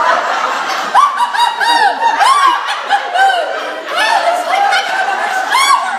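An audience of women laughing loudly, many voices overlapping in high, rising-and-falling peals.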